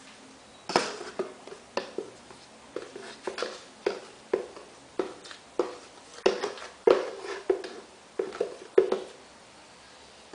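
A series of about twenty sharp, irregular taps and knocks, two or three a second, starting about a second in and stopping about a second before the end.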